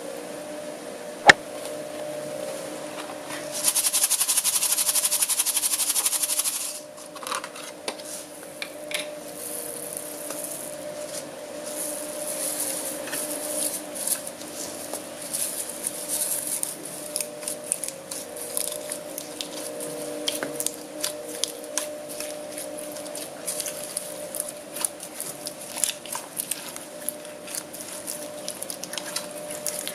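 Hand kneading and squishing homemade green slime mixed with foam beads, giving soft wet squelches and many small crackling clicks. A sharp click comes about a second in, and a loud hissing rattle runs for about three seconds soon after. A steady low hum lies underneath.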